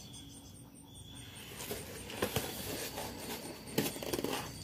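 Cardboard box being handled and turned over in the hands: soft rustling and scraping with scattered light clicks and a couple of sharper knocks, starting after about a second and a half of near quiet.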